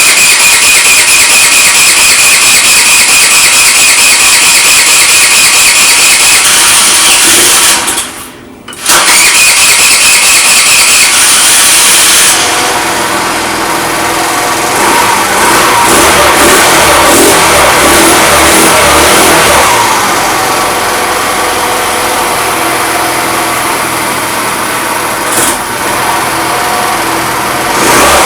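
Fada Wind scooter's electric starter cranking the engine for about seven seconds, a brief stop, then cranking again. About twelve seconds in, the engine catches on fresh petrol and a cleaned carburettor and keeps running.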